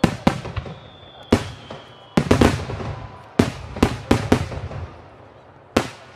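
Aerial firework shells bursting in quick succession: about ten sharp booms at uneven intervals, each with a rolling echo and crackle, the last one near the end.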